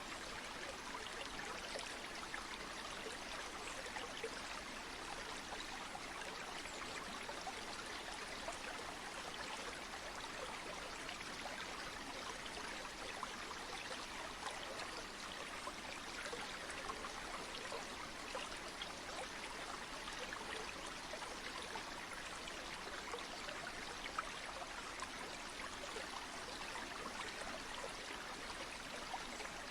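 Flowing stream or river water rushing steadily, an even hiss of running water with fine splashes flecked through it.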